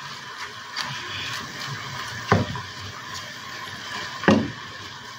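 Kangkong (water spinach) stir-frying in a hot pan while it is tossed with two wooden spoons: a steady sizzle with light rustling of the leaves, and two sharp knocks of a wooden spoon against the pan, about two and four seconds in.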